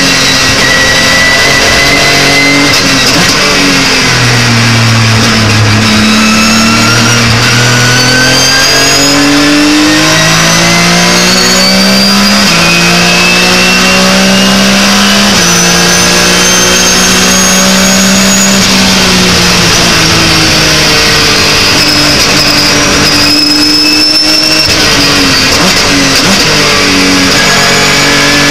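Porsche 911 GT3 Cup race car's flat-six engine at racing speed, heard from inside the cockpit. Its pitch falls about four seconds in and again around twenty seconds, and climbs through the gears in between and near the end, with a high whine that follows the engine's pitch.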